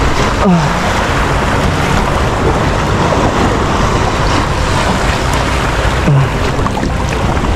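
Steady rush and slosh of choppy sea water around the camera.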